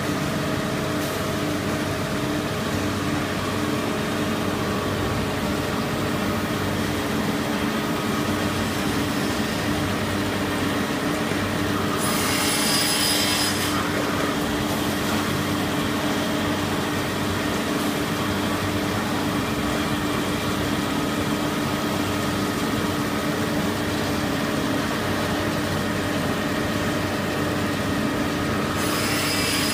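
Spiral paper tube making machine running with a steady hum. Twice, about twelve seconds in and again near the end, a saw blade cuts through the paper tube with a hiss lasting over a second.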